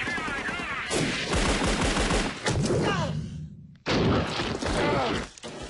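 Battle gunfire: rapid rifle and machine-gun fire in dense volleys, with men yelling over it. The sound drops away almost to nothing about three and a half seconds in, then the firing and yelling come back loud.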